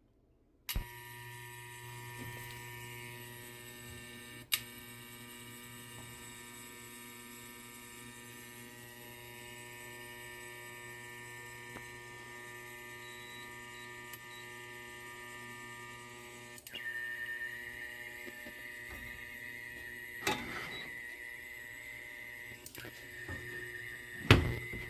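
Rinnai RBR-IGB310 induction cooktop coming on with a click and running with a steady electrical hum made of several tones. A higher whine joins in near the end, and a few sharp clicks sound along the way.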